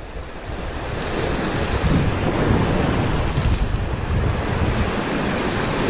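Wind buffeting the microphone over small sea waves washing against shoreline rocks, the gusts getting stronger about two seconds in.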